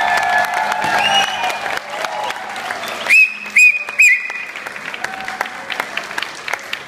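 Audience applauding, with many sharp claps, as music fades out over the first two seconds. About three seconds in come three short, loud, high whistles, the loudest sounds here.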